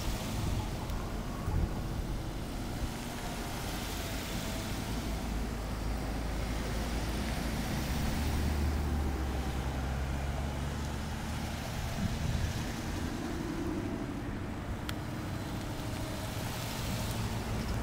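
Race-caravan team cars and vans driving past one after another on a mountain road, a steady hum of engines and tyres that swells about eight seconds in.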